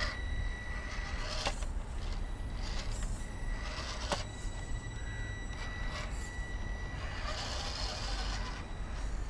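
Small electric motor of a 1/15-scale RC rock crawler whining steadily as it drives, with scrapes and a few sharp clicks as the truck clambers over rocks. The whine drops out for a moment after a couple of seconds and stops a few seconds before the end.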